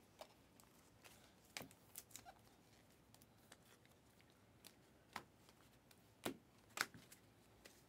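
Faint handling of trading cards: a stack of chromium cards being flipped through by hand, giving a few scattered sharp clicks and light rustles.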